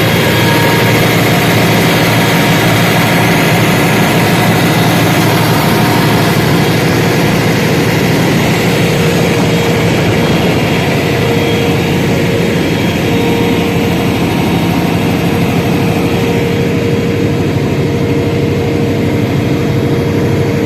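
Large 1000 kVA Cummins diesel generator running steadily with a heavy, even engine drone.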